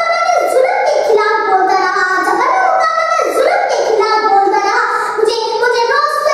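A young girl's voice, unaccompanied, chanting a verse in a sing-song melody with drawn-out notes.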